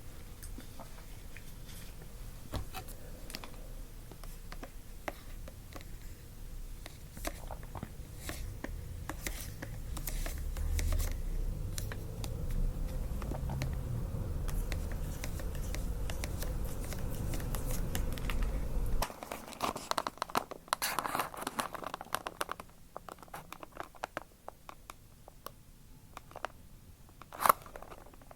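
Fast-food packaging being handled up close: paper and plastic crinkling, scraping and tearing in scattered clicks and crackles. A low rumble of handling runs through the middle and stops abruptly about two-thirds of the way in, followed by a denser burst of crinkling and one sharp click near the end.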